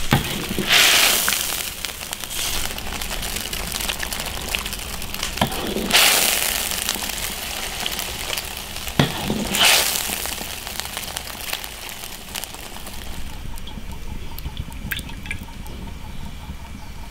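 Spicy broth bubbling in an iron wok while a metal ladle scoops and pours it out, with louder splashing swells about a second, six seconds and ten seconds in and a few sharp knocks of the ladle on the wok. The bubbling is quieter from about thirteen seconds on.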